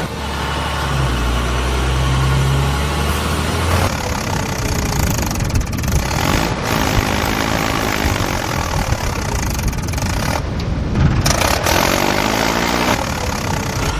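Tractor engine sound effect: a steady low engine drone for about four seconds, then a harsher, rougher running sound with a few brief revs.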